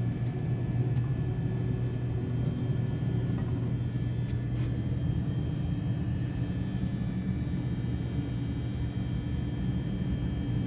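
Southwestern Industries Trak TRL 1630SX CNC lathe running, a steady low machine hum with faint constant high-pitched tones above it, and two faint clicks about four seconds in.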